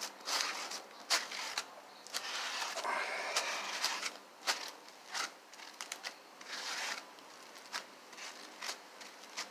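Brush dabbing and scraping resin-wet fiberglass onto a car's inner rocker panel, making a string of irregular sharp clicks and short scrapes.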